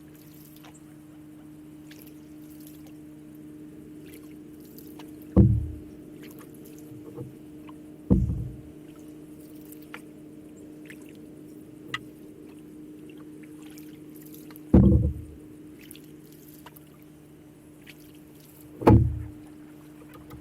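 Canoe paddle strokes: four low thuds a few seconds apart, each fading quickly, over a steady low hum.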